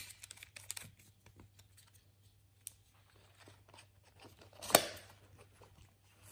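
Small hard-plastic clicks and rattles of a GoPro camera mount being handled: the camera's quick-release buckle slid out of and back into the chest mount's base plate. The loudest sound is a single louder slide-and-snap about five seconds in.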